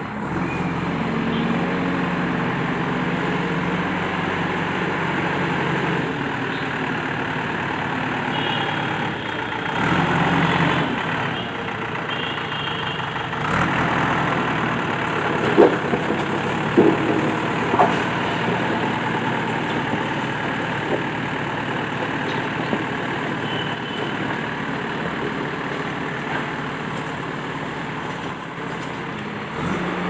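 Steady engine running sound for a backhoe loader, with low hum tones that shift a few times. There are a few sharp knocks about halfway through.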